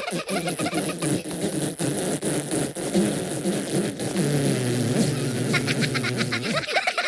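Cartoon fart sound effect: a long, low buzz that wavers up and down in pitch for about six and a half seconds, then stops.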